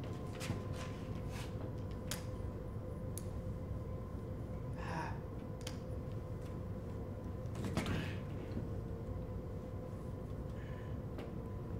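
Quiet room tone with a steady electrical hum, broken by a few faint clicks and a brief rustle about eight seconds in.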